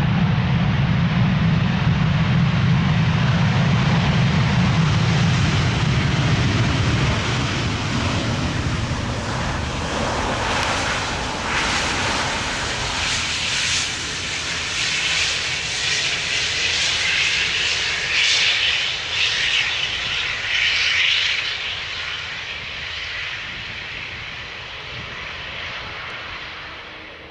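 Airbus A350-900 airliner's Rolls-Royce Trent XWB jet engines during the landing rollout. A steady low rumble comes first, then a louder, rougher roar through the middle that fades away near the end.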